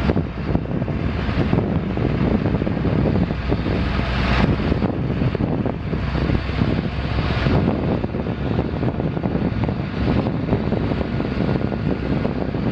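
Caterpillar 3306 inline-six turbo diesel of a 1994 Ford LTS9000 dump truck running steadily, a loud, even engine noise.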